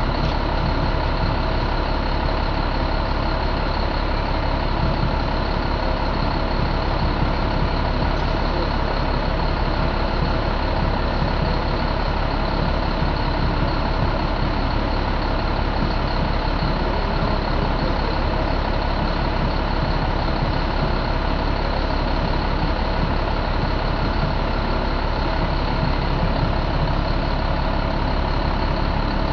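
2007 Caterpillar C7 inline-six diesel engine idling steadily in the truck, at an even speed with no revving.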